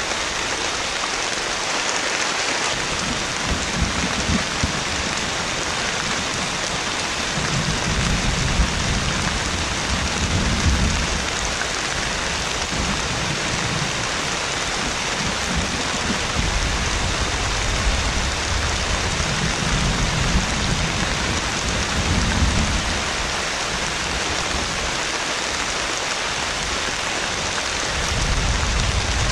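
Heavy rain pouring steadily, with low rolling thunder swelling up and fading several times.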